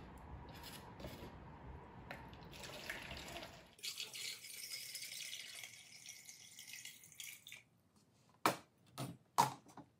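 Distilled water poured from a plastic gallon jug into a plastic measuring cup, then, from a few seconds in, poured from the cup through a funnel into a gallon jug with a trickling hiss. Three sharp knocks near the end.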